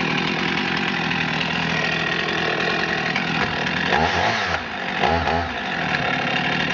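Husqvarna 55 chainsaw's 53 cc two-stroke engine running, its pitch rising and falling twice around the middle.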